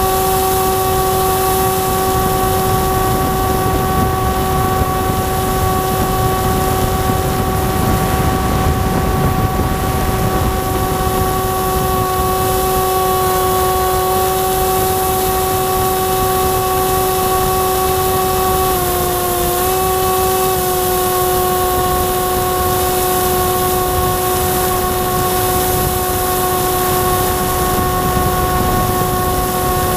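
Electric motor and propeller of an FPV radio-controlled plane whining at a steady pitch, picked up by the onboard camera, with wind rushing over the airframe. The pitch dips briefly about two-thirds of the way through, then comes back up.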